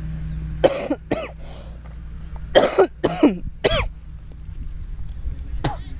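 A man coughing and clearing his throat in short bursts: a pair about a second in, three more around three seconds in, and one near the end.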